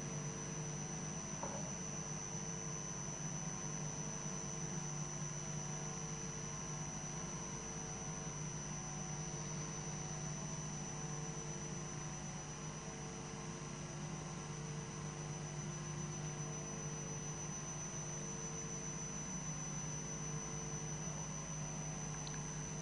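Steady room tone of the assembly chamber during a moment of silence: a low hum with a thin high whine and an even hiss, and a fainter tone that comes and goes about every two seconds.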